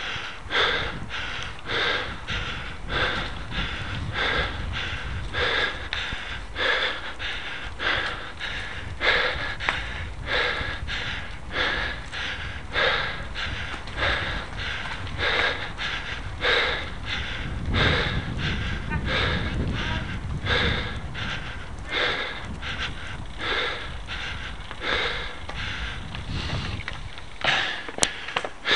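Cyclist's heavy, rhythmic breathing, about two hard breaths a second, from the effort of climbing a steep hill on the bike, over a steady low rumble.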